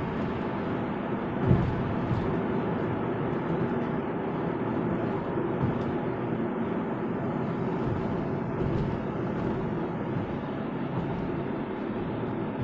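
Steady road and tyre noise with engine hum, heard from inside a car's cabin at highway speed, with a single thump about a second and a half in.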